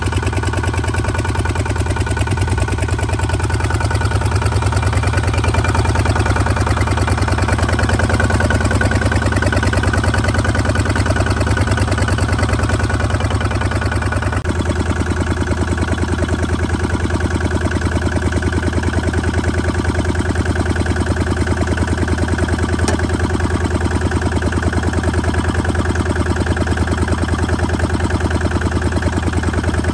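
Diesel engine of a two-wheel walking tractor idling steadily with a fast, even chug; its note shifts slightly about halfway through.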